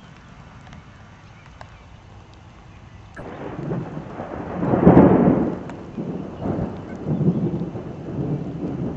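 Thunder from a supercell: a rumble starts suddenly about three seconds in, swells to its loudest a couple of seconds later, and rolls on in uneven peals.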